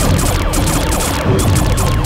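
Background music over cartoon battle sound effects of laser-gun fire.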